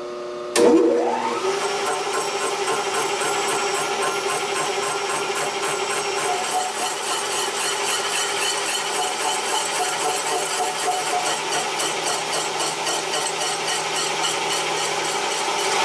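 Milling machine spindle starting about half a second in, its pitch rising as it spins up, then running steadily at low speed while a slitting saw cuts through a metal collar, with a fast, even ticking of the saw teeth biting the metal. It stops at the end.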